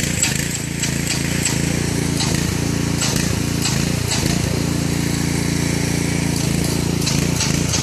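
Lure coursing machine's motor running steadily, pulling the lure line across the field, with scattered clicks over it.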